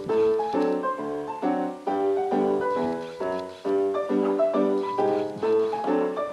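Piano music: quick, repeated chords and notes at a steady pace.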